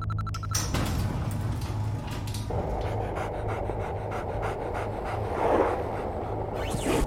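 A dog panting, over a low steady drone, with a quick rattle of clicks at the very start.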